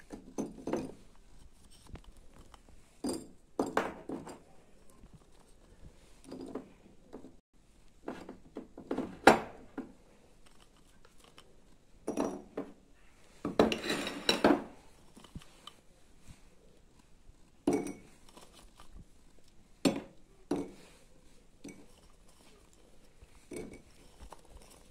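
Pieces of dried fig being dropped and pressed by hand into small glass jars: irregular light knocks and clinks of fruit and jars against glass and the countertop, with a denser clatter around the middle.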